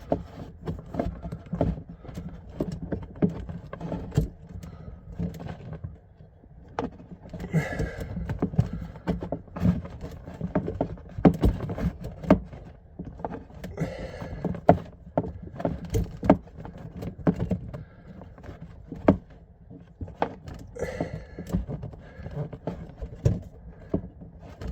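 A hot water supply pipe being cut through by hand: many small clicks and knocks of the tool working around the pipe, with a short scraping rasp three times, about every six or seven seconds.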